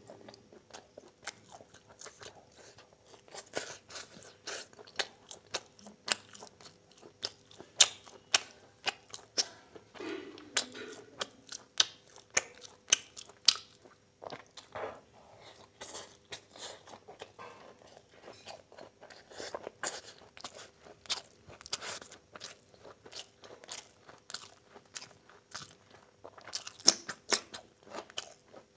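Close-miked chewing of a person eating chow mein by hand: an irregular run of sharp mouth clicks and smacks, a few each second.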